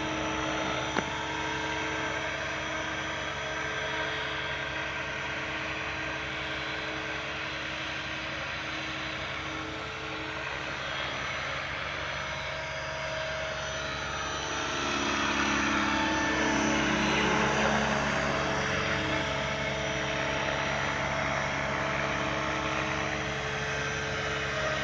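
Several Align T-Rex radio-controlled helicopters flying together: a steady whine of rotors and motors made of several held tones. It grows louder for a few seconds about fifteen seconds in.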